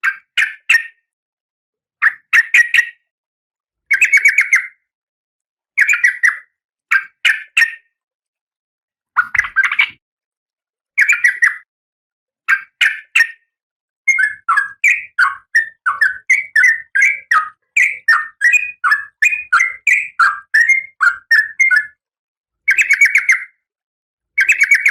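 Female Oriental magpie-robin (kacer) calling, the call of a female in breeding condition: short harsh bursts of rapid notes about every two seconds. Midway these run into about eight seconds of fast, varied chattering, then two more bursts near the end.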